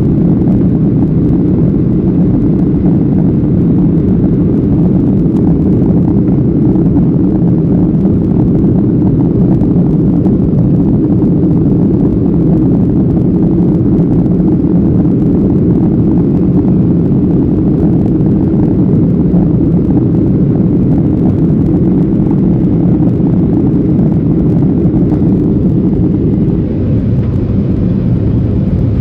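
Steady low rumble of an airliner cabin in flight, the engine and airflow noise heard through the fuselage.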